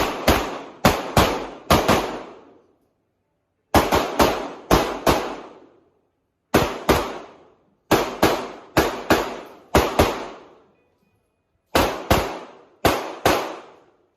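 Handgun fired in rapid strings at a practical-shooting match: about five quick shots, a pause, five more, then a longer run of about ten, and a last string of about five. Each shot has a short echoing tail.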